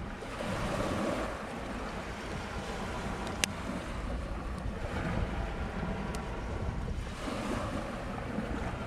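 Surf breaking on the shore, swelling and easing every few seconds, with wind rumbling on the microphone. A single sharp click about a third of the way through.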